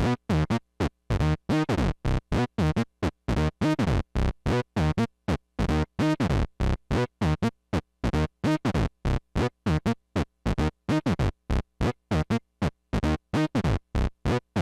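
Software synth lead in Maschine, step-sequenced by an Arturia BeatStep, playing a looping pattern of short, separate notes about three to four a second, many with a falling sweep. The note length and swing are being changed by hand on the BeatStep's knobs, so the notes vary in length.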